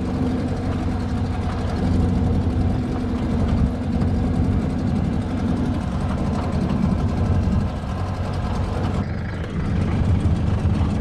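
Boat motor running steadily at a low, even pitch, with a short dip in level about nine seconds in.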